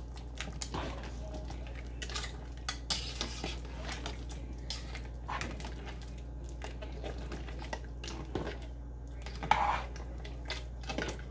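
Metal utensils clinking and scraping against a cooking pot and dishes, a scatter of short clinks with the loudest about 9.5 seconds in, over a steady low hum.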